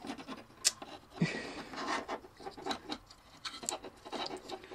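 Light clicks and scraping of laser-cut wooden model locomotive kit parts being handled, as wheels and axles are eased off a wooden chassis.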